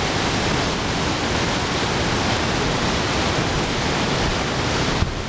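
Steady rush of a white-water mountain river cascading over rocks. A small click about five seconds in, after which the level dips slightly.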